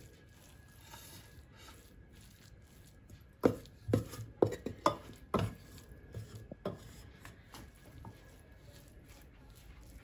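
Wooden spoon scraping and knocking against a tilted stainless steel pot as a cooked lentil and bulgur mixture is emptied into a glass dish. A run of sharp knocks begins about three and a half seconds in and lasts about three seconds, followed by fainter taps.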